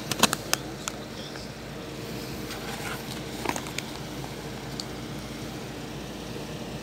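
Several sharp plastic clicks in the first half second as discs are handled in a blue plastic Blu-ray case, with a finger pressing the disc hub, then a few light handling ticks over a steady low hum.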